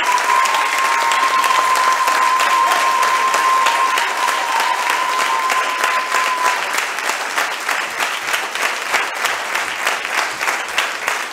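Audience applause in a hall, loud and dense at first, then breaking into more separate, evenly paced claps in the second half. A steady high tone lingers under it for the first six seconds or so, then stops.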